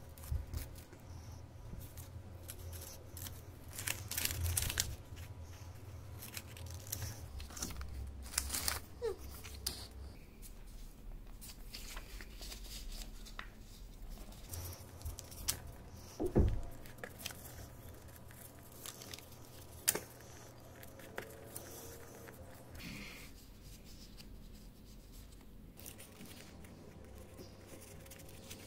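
Scissors snipping through a sheet of craft paper, then paper rustling and creasing as it is folded back and forth into accordion pleats, with scattered sharp clicks and a faint low hum throughout.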